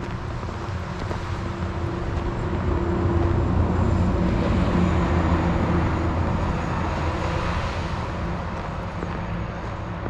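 A motor vehicle passing by: engine hum and road noise swell to a peak midway and then fade, the engine's pitch dropping as it goes by.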